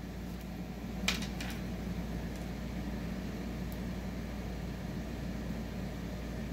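Steady background hum of a fan or air-conditioning unit, with two light clicks about a second in as small metal jewelry pieces, a chain and a jump ring, are handled.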